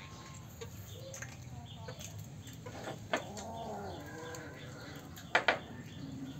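Cats growling as they eat: low, wavering, angry-sounding moans that rise and fall, the longest about halfway through. Two sharp clicks stand out as the loudest sounds, one about halfway and a double one near the end.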